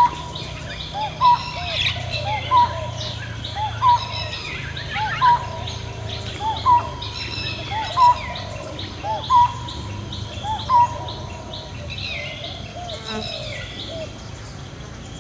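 Birds calling: one bird repeats a short, clear note at a steady rhythm, about one every second and a half, then stops about three quarters of the way through. Under it, several other birds chirp and twitter at a higher pitch throughout.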